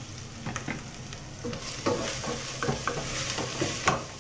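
Ground spice paste and added ingredients frying in hot oil in a stainless steel pot, a steady sizzle with a spoon stirring and scraping against the metal. The sizzle and scraping pick up about a second and a half in, with a couple of sharper clicks of the spoon on the pot.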